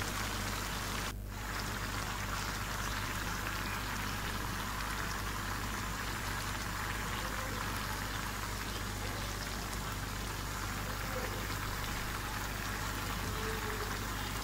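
Catfish and cauliflower curry simmering in a pan: a steady bubbling, with a brief dip about a second in.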